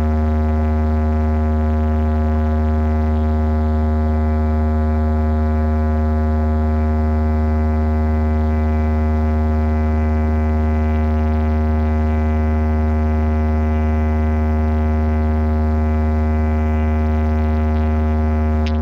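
A deep, steady bass drone played through a DJ competition speaker stack, one sustained low tone with a buzz of overtones, held unchanged and then cutting off at the end.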